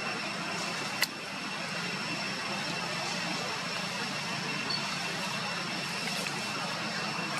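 Steady outdoor background hiss with two faint, steady high-pitched tones running through it, and a single sharp click about a second in.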